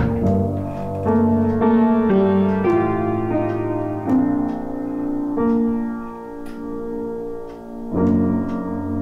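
Slow piano music of the film score, with notes and chords changing about once a second over a low sustained bass; a new, louder chord enters near the end.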